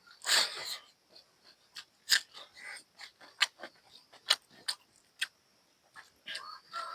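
Close-up eating sounds: chewing buffalo curry and rice, with irregular sharp mouth clicks and lip smacks.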